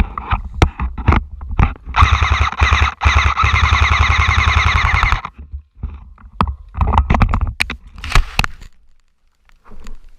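Airsoft gun firing on full auto: a rapid burst of about three seconds starting two seconds in, with scattered sharp knocks before it and a shorter burst of shots near the end.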